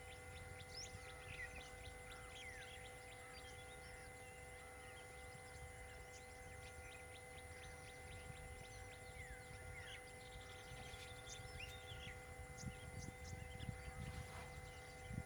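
Faint outdoor ambience: scattered bird chirps over a steady low rumble and a constant thin hum, with a few low thumps near the end.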